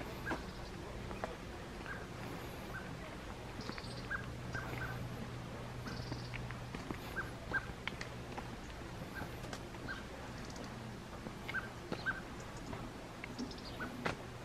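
Scattered short bird chirps, several a second at times, over a faint steady low hum.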